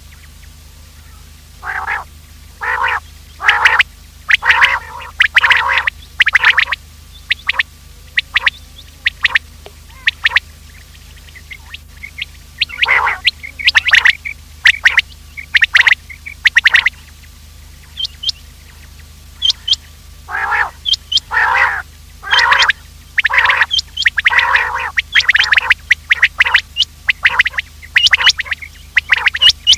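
Common quail calling: runs of short, sharp call notes repeated several times in quick succession, with pauses between runs, over a steady low hum.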